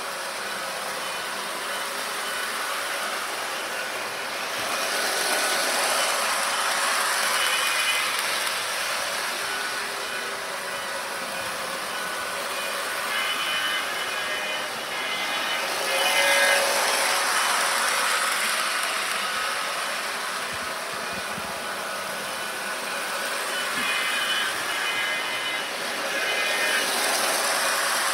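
Model trains running on their track: a steady whir of electric motors and wheels on the rails, which swells and fades as a train comes round past the camera, loudest about five, sixteen and twenty-seven seconds in.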